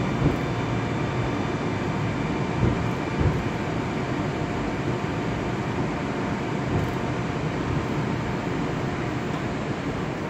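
Interior noise of an 81-765.2 'Moskva' metro car arriving at a station: steady rolling and running noise that eases slowly, with a faint high whine in the first few seconds and a couple of soft thumps near the start.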